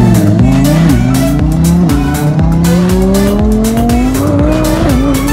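Twin-turbo Audi R8's engine accelerating hard at full throttle, its note climbing through the gears. There are quick upshifts about half a second, one second and two seconds in, then a long rising pull to another shift near the end.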